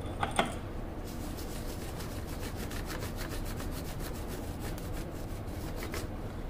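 Two sharp clicks, then quick repeated rubbing strokes on the surface of a printed circuit board as it is scrubbed clean to expose a copper track.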